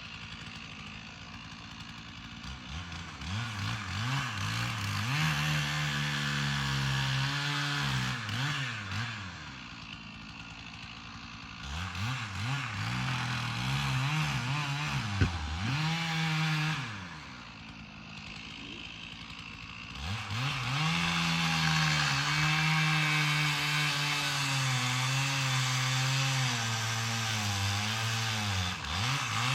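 Petrol chainsaw engine alternating between idle and high revs: it revs up and drops back to idle twice, then from about two-thirds in runs steadily at full throttle, its pitch wavering slightly.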